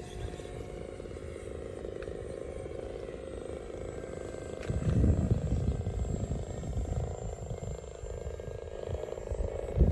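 Twin 50 mm electric ducted fans of an RC Su-27 jet running steadily, with a faint high whine. Louder low rumbling surges come about five seconds in and again near the end.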